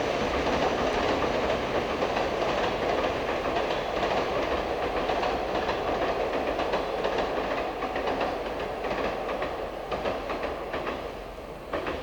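Train running past, wheels clattering over the rail joints; the sound slowly fades in the last few seconds, with a few sharp clacks near the end.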